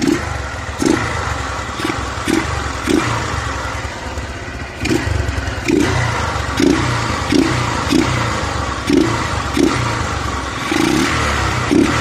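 Small motorcycle engine running with its air filter cover and air filter removed and the stock exhaust fitted. The throttle is blipped repeatedly, roughly once a second, with a short pause near the middle.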